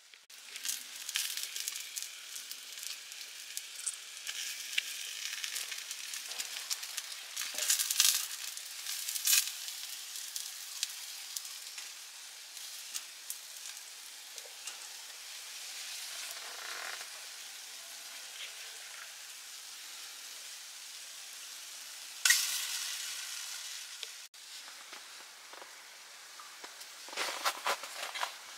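Hokke (atka mackerel) fillets and a sausage sizzling and crackling on a wire grill net, with a few sudden louder spits.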